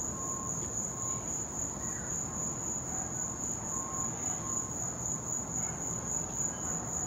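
Evening chorus of crickets chirring in one steady, high-pitched trill, with a fainter lower chirp repeating a little more than once a second behind it.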